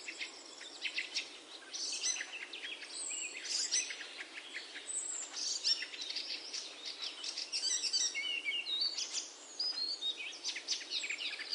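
Small birds chirping and twittering continuously, a dense chatter of many short, quick high calls over a faint steady hiss.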